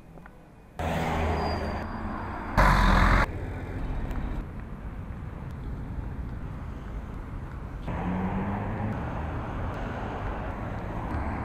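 City street traffic noise: a steady rush of passing vehicles, with a short loud burst about three seconds in.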